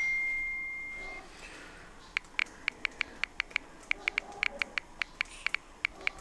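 A smartphone message notification: a single steady beep that fades over about a second. Then comes a quick, irregular run of soft clicks from the phone's on-screen keyboard as a reply is typed.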